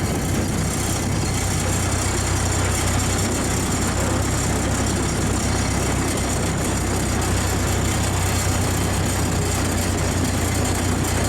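1947 Ford 2N tractor's four-cylinder flathead engine running steadily at an even speed.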